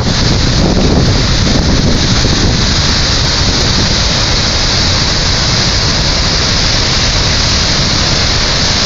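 Flash-flood torrent rushing over rocks and mud in a loud, steady roar of white water, with heavy wind-like rumble on the microphone.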